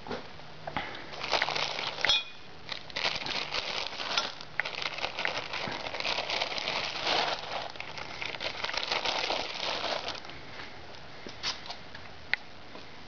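Clear plastic bag crinkling and rustling as it is handled, from about a second in until about ten seconds in, with a few sharp clicks before and after.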